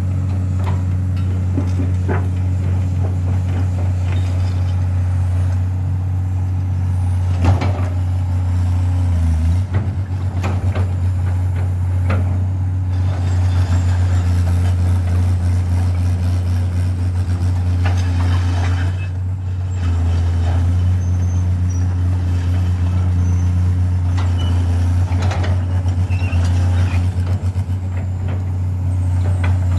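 Kato HD700 excavator's diesel engine running steadily as the machine works, with a few sharp knocks and two brief dips in the engine note.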